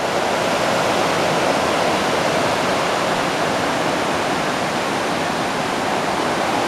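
River water pouring over a weir in full flow: a loud, steady rush of white water.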